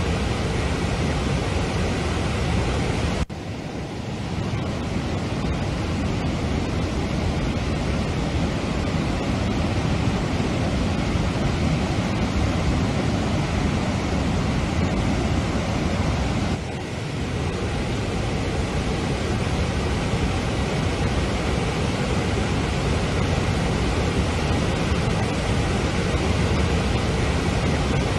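Steady rush of floodwater pouring through the raised spillway gates of a reservoir dam. The noise dips briefly twice, about three seconds in and about seventeen seconds in.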